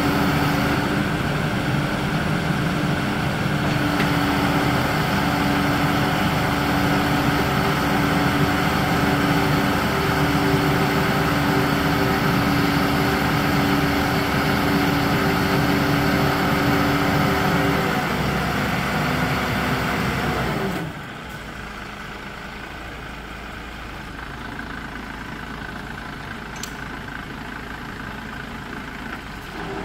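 Truck-mounted loader crane running, its diesel engine held at raised revs with a steady pump whine while the boom works. About two-thirds of the way through it winds down to a quieter idle, then picks up again right at the end.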